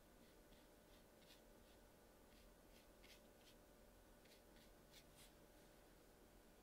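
Faint scratches of a fine round watercolour brush tip flicking short strokes onto textured watercolour paper. There are about a dozen, irregularly spaced, and they stop about five seconds in, over a steady low hum.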